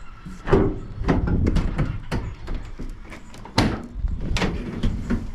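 A series of sharp knocks and clunks, the loudest about half a second in and another about three and a half seconds in.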